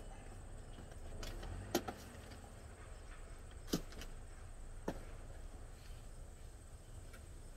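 A few sharp knocks from a painted wooden tool box being handled, lifted by its wooden dowel handle and set down on a plastic tub, the loudest about halfway through, over a steady low hum.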